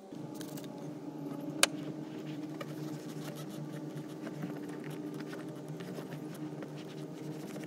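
Microfiber towel wiping down a car's rear seat: soft rubbing with many faint ticks and one sharp click about a second and a half in, over a steady machine hum.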